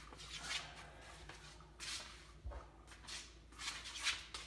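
Soft rustling and scraping of handling, in four or five short bursts.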